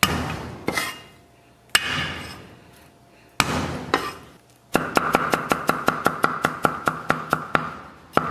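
Chinese cleaver on a wooden chopping block: a few single heavy whacks as the flat of the blade smashes peeled garlic cloves, then fast even chopping, about five chops a second, as the garlic is minced.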